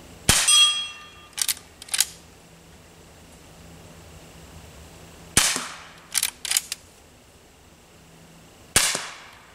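Three shots from a Henry H001 lever-action .22 rimfire rifle, about five and then three seconds apart, the first trailed by a short ringing. After each of the first two shots the lever is worked with a couple of sharp clicks.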